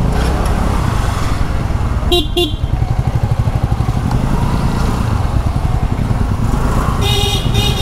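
Riding through traffic on a motor scooter: a steady low engine-and-wind rumble on the microphone. A short vehicle horn toot sounds about two seconds in, and a longer horn blast comes near the end.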